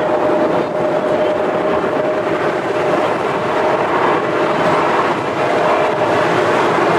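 Airbus A350-900 jet airliner's Rolls-Royce Trent XWB engines running at takeoff thrust, a steady, loud noise with a whine that fades after a few seconds.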